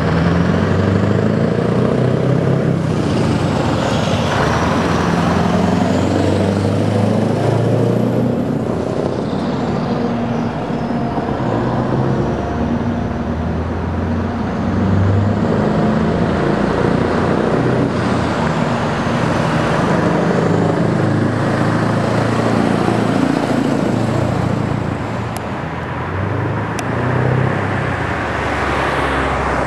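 Scania trucks, the R620 with its 16-litre V8 diesel among them, driving past with their engines running at a steady, low drone. A faint high whine rises and falls a few times over the engine noise.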